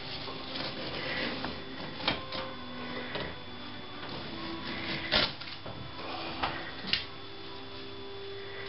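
Scattered light knocks, clicks and scrapes from hand work with a T-square against a plaster ceiling, the sharpest knocks about 2, 5 and 7 seconds in.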